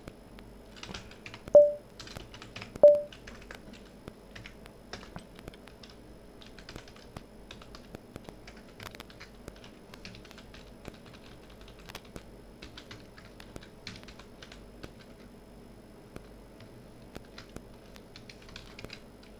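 Typing on a computer keyboard: a run of irregular key clicks. About a second and a half in, two short, loud beeps come about a second apart.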